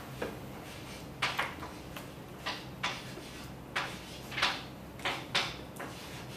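Chalk writing on a blackboard: about a dozen short, irregular scratches and taps as the strokes of an equation are written.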